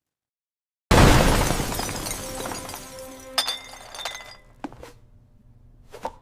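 Cartoon sound effect of a stack of drinking glasses shattering: a sudden loud crash about a second in, then glass pieces ringing and tinkling as it dies away, with a few separate clinks later on.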